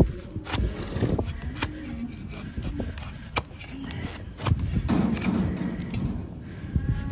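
A large flat hoof-paring blade shaving a donkey's hoof against a wooden block: scraping, with several sharp cracks as the blade cuts through the horn.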